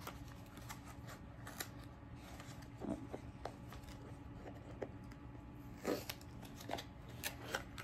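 Small cardboard product box being handled and opened by hand: scattered light clicks, taps and rustles of cardboard and packaging, a few slightly louder than the rest.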